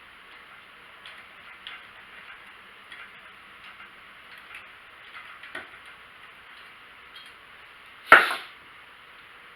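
Light clicks and taps of screws and metal parts being handled while a fan is screwed onto an ASIC miner, with one loud sharp clack a little after eight seconds in, over a steady hiss.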